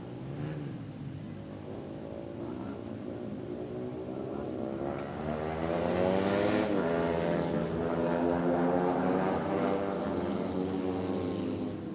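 A propeller aircraft passing overhead, its drone building to a peak about six seconds in and fading toward the end.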